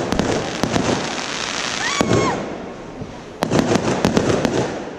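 Aerial fireworks bursting overhead in rapid volleys of sharp crackling bangs: a dense run at the start, a lull about two seconds in, then another quick volley from about three and a half seconds.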